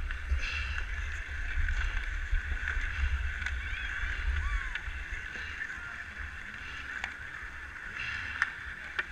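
Ice skate blades scraping and swishing over rough outdoor ice, with wind rumbling on the camera microphone and a few sharp clacks, one about seven seconds in.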